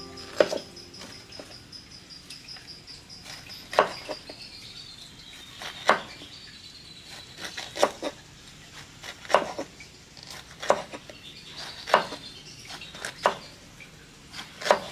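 Kitchen knife cutting a peeled angled luffa (gambas) into rounds on a wooden cutting board, each cut ending in a sharp knock of the blade on the board, about ten at uneven intervals of one to two seconds.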